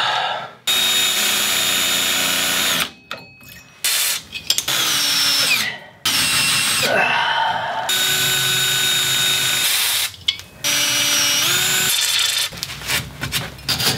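Electric drill drilling into a broken-off bolt stuck in rusted cast iron. It runs in several spells with short pauses, its pitch gliding up and down as it speeds up and slows.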